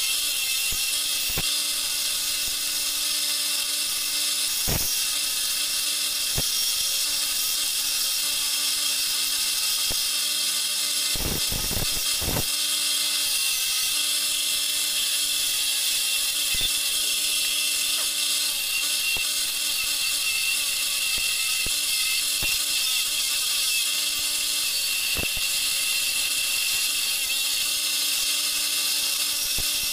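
Homemade wood lathe running with a steady motor hum while a chisel cuts a spinning wooden spindle, giving a continuous high hiss. Scattered sharp clicks, with a quick run of them a little before halfway.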